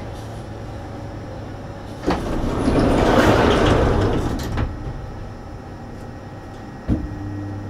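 Sydney Monorail car heard from inside: a steady low hum from the train, with a rush of noise that swells for about two seconds in the middle. Sharp clicks come about two seconds in, again near the middle and once near the end.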